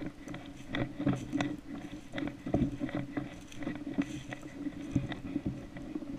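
Footsteps crunching through dry fallen leaves at a walking pace, about two steps a second, with a steady low hum underneath.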